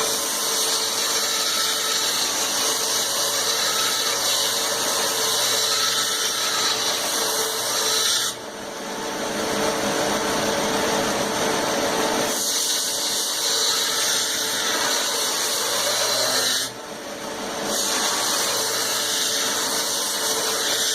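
Grinder running steadily with a steel railroad spike blade pressed against the abrasive, a loud steady grinding hiss as the bevels are ground down. Twice, about 8 and 17 seconds in, the steel comes off for about a second, leaving only the motor's hum, then goes back on.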